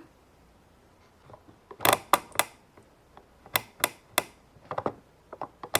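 Plastic keys of a toy cash register clicking as they are pressed, a few single clicks at first, then quicker presses near the end.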